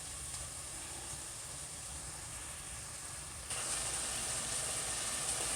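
Chicken seasoning frying in a pot, a steady sizzle that gets louder about three and a half seconds in.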